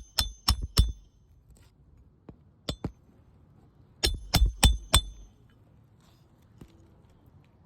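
Hammer striking a steel roof snake to drive a roofing nail under a shingle tab: quick ringing metal strikes, three at the start, a few lighter taps about two and a half seconds in, then four more about four seconds in.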